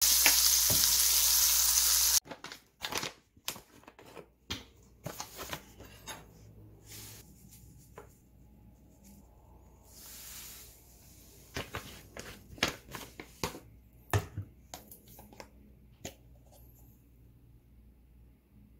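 Mackerel sizzling in a stainless steel frying pan, a loud even hiss that cuts off suddenly about two seconds in. Then small kitchen handling sounds: a spoon clicking against a bowl, a plastic pouch crinkling, and granules being scooped and poured.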